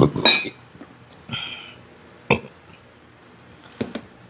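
Eating sounds up close: a few separate sharp crunches and wet mouth noises from biting and chewing, the loudest a double burst right at the start.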